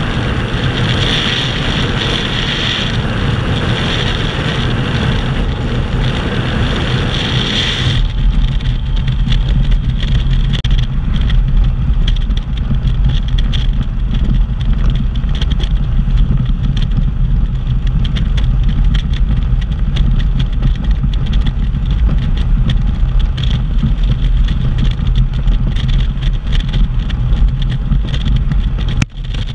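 Motorcycle riding at highway speed: engine drone mixed with wind rushing over the microphone. About eight seconds in, the wind hiss drops away abruptly and the low engine drone takes over.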